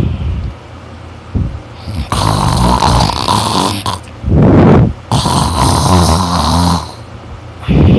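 A person snoring loudly in sleep: two long buzzing snores of about two seconds each, a shorter rush of breath between them, and another snore starting near the end.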